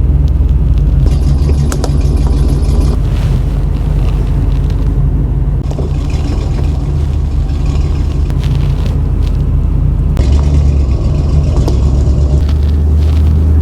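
Truck driving, a steady low engine and road rumble.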